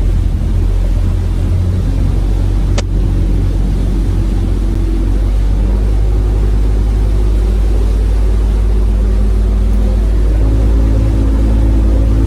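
Sightseeing boat's engine running steadily with a deep drone. There is a single sharp click about three seconds in.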